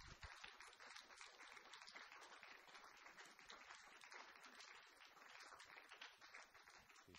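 Faint audience applause, a dense patter of many hands clapping in a theatre, thinning out near the end.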